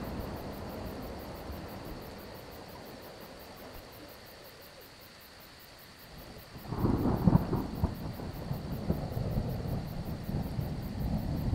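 Thunder: a low rumble fades away over the first few seconds, then a loud clap breaks about two-thirds of the way in and rolls on. Crickets chirp steadily beneath it.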